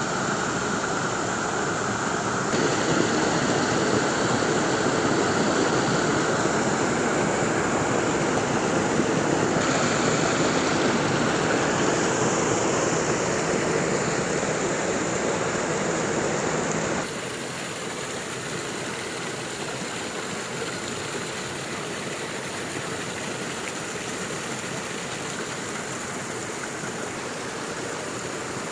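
Steady rush of falling water at a waterfall. It drops suddenly to a quieter, more even rush about two-thirds of the way through.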